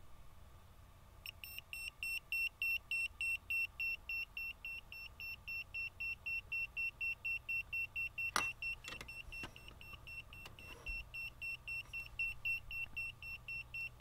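Handheld EMF/RF meter beeping fast at about four high-pitched beeps a second, starting about a second in. The quick rate signals strong electromagnetic fields from the cluster of wall-wart power adapters it is held near. A couple of brief handling knocks just past the middle.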